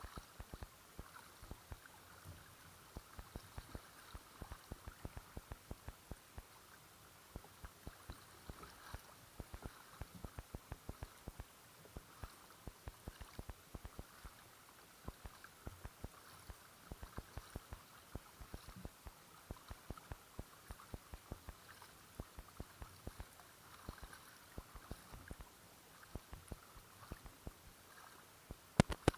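Kayak being paddled: water splashing and lapping against the hull, with many small irregular ticks and clicks, and one sharp knock near the end.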